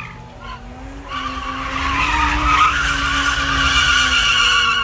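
Car tyres squealing hard as the car spins donuts in a burnout. It is a wavering high screech that rises in after about a second and cuts off sharply near the end.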